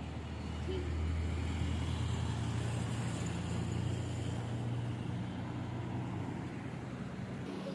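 Motor vehicle driving on the road: a steady low engine hum over road noise, rising a little in pitch about halfway through.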